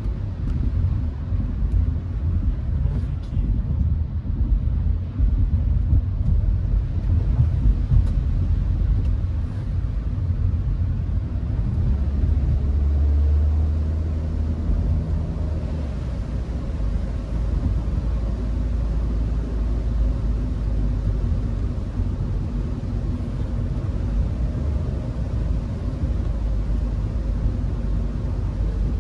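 Steady low rumble of engine and road noise inside a moving Hyundai HB20 1.6 automatic, swelling for a couple of seconds about halfway through.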